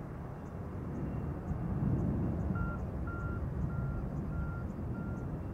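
Distant roar of an Airbus A320-214's CFM56 jet engines at climb power just after takeoff, swelling about two seconds in. From about halfway a vehicle's reversing alarm beeps steadily about twice a second.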